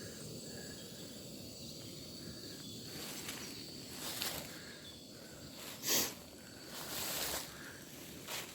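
Quiet outdoor background with a few brief rustling and handling noises, the loudest about six seconds in.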